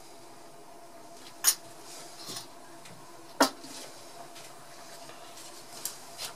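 A spoon clinking on dishware: two sharp clinks about two seconds apart as spoonfuls of seasoning are tipped into a cast-iron Dutch oven, with a few softer knocks near the end.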